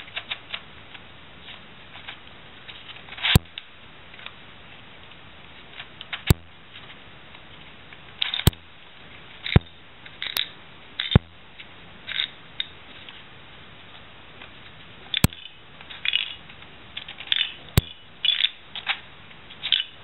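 Plastic pieces of a Latch Pyraminx twisty puzzle being turned by hand: irregular clicks and clacks, some in quick clusters, with several sharp single clicks spread throughout.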